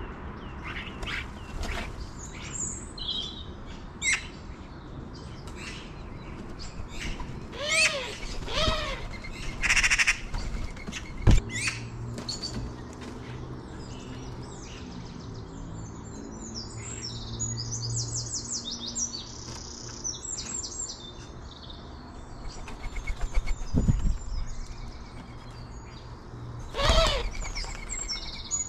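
Small garden birds chirping and twittering, with several louder, lower calls in between. A single sharp knock comes about eleven seconds in, and a low steady hum runs through the middle.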